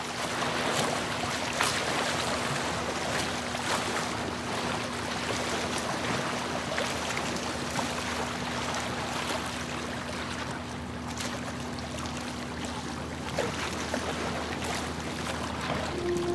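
Motorboat under way: a steady engine hum under the continuous rush and splash of water along the hull and wake.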